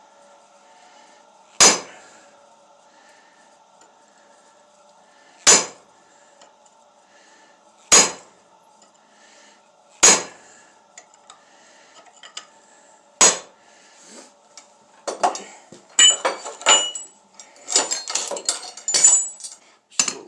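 Blacksmith's hammer striking hot steel on an anvil: five single ringing blows a few seconds apart, then a quick run of lighter taps and clinks over the last five seconds. A faint steady hum runs beneath.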